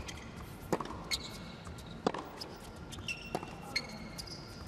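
Tennis rally on an indoor hard court: a few sharp pops of the ball off the rackets and court, with sneakers squeaking in short high chirps between the hits.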